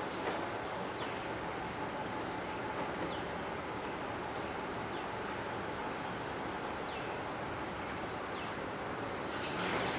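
Outdoor ambience: a steady hiss with a constant high insect drone and a few faint, short falling chirps every second or two.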